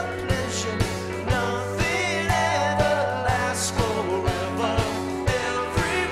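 Live rock band playing: electric guitar and bass over a steady drum beat of about two hits a second, with a man singing at the microphone.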